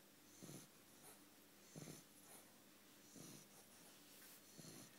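Bulldog snoring faintly in its sleep: four short snoring breaths, about one every second and a half.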